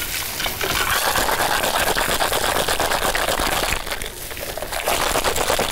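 Raw pork ribs being mixed by hand with dry spices, a dense rustling full of small clicks in two stretches, with a short break about four seconds in.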